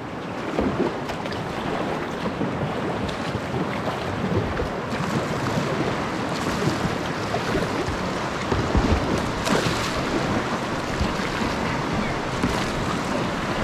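Creek water rushing over riffles around a moving whitewater kayak, with paddle strokes dipping in and gusts of wind buffeting the camera microphone.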